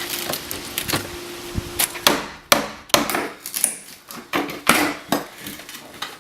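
Hand tools knocking and prying at a wooden window frame, with irregular sharp knocks and cracking wood as the old window is worked loose from the jamb and brick mold. A faint steady hum lies under the first two seconds.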